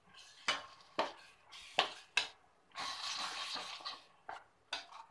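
Stainless steel perforated ladle stirring a thick masala gravy in a stainless steel kadai, scraping and clinking against the pan in a string of knocks, with one longer scrape about three seconds in.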